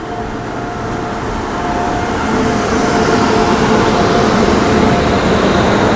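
Moving passenger train: a steady rush of wheel and rail noise with wind, growing a little louder over the first couple of seconds, with a faint steady whine in it.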